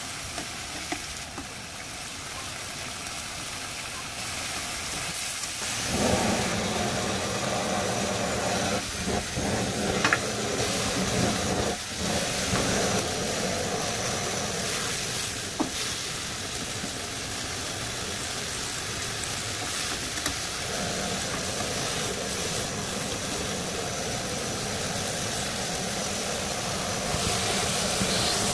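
Marinated pork neck sizzling in a wok as it is stirred. From about six seconds in, a handheld kitchen torch runs steadily over the meat, its flame hissing over the sizzle, with a few brief knocks.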